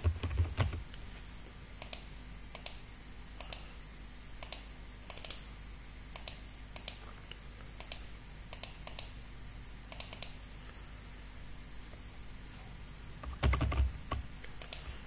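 Scattered clicks of a computer keyboard and mouse, single and double, one or two a second, stopping about ten seconds in. A low thump comes near the end.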